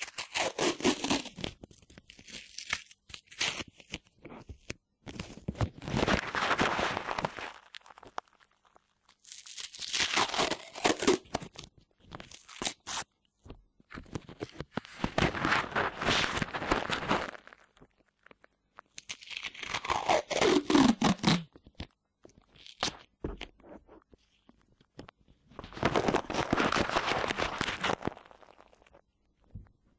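Sticky tape being pulled and crinkled right against a binaural dummy head's microphone ears, in repeated crackling, tearing strips of one to three seconds with short pauses between them.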